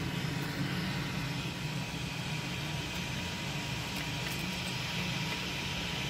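Desktop PC cooling fans running steadily: the power supply fan, CPU cooler fan and graphics card fan together, an even whirr with a low hum underneath.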